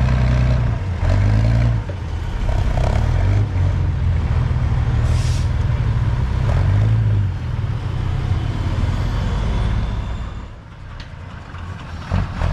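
Trial truck's engine revving hard and labouring as the truck climbs out of a steep dirt pit, its pitch rising and falling with the throttle. A short hiss comes about five seconds in, and the engine sound falls away about ten seconds in.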